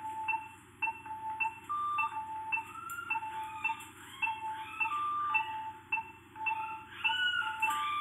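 Background music: a light tune of short, bell-like mallet-percussion notes repeating in a steady pattern.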